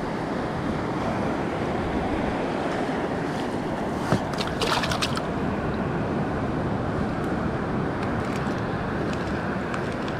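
Steady rush of surf on the shore, with wind buffeting the microphone. A brief cluster of rustles and clicks from handling about four seconds in.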